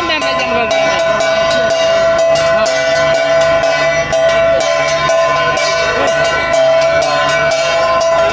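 Metal bells struck rapidly and ringing on, about two to three strikes a second, over a crowd's voices.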